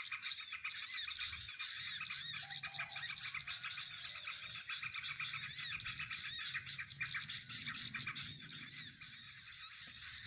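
Continuous, dense high-pitched chirping of small birds: quick arched chirps repeating rapidly and overlapping, with a faint low rumble underneath.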